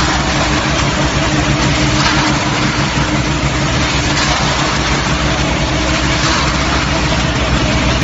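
Concrete mixer-pump running steadily, its engine or motor holding an even note while the drum turns and discharges wet concrete into the pump hopper.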